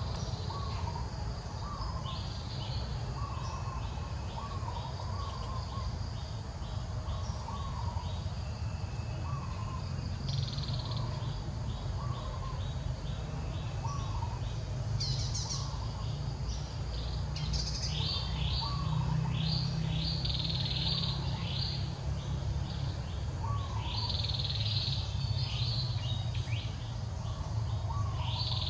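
Birds calling: a short, hooked chirp repeated about once a second, joined in the second half by bursts of higher, quicker chirping, over a steady low rumble.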